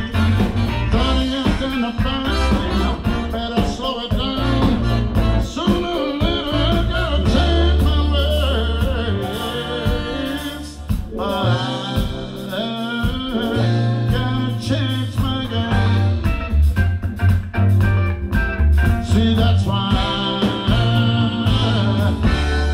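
Live blues-soul band playing a song, with a horn section of trumpet and saxophones over electric guitars, keyboards, bass guitar and drums.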